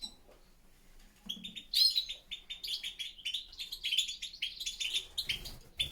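European goldfinches twittering: a quick run of high chirps and trills that starts about a second and a half in, after a quiet opening.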